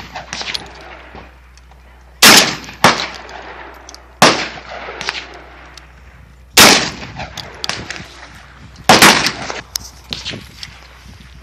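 Benelli M4 semi-automatic 12-gauge shotgun fired repeatedly, shots a second or two apart, each followed by a long echo off the range.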